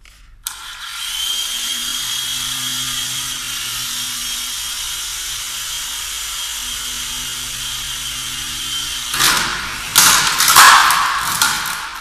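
Small electric motors and coaxial rotors of a Syma S107G toy RC helicopter spinning up and flying, with a steady high-pitched whine. From about nine seconds in, loud clattering knocks and rattles as the helicopter comes down.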